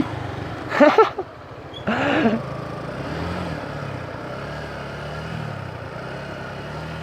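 Small motorcycle engine running at low revs, its pitch rising and falling gently, with two short calls from a voice about a second and two seconds in.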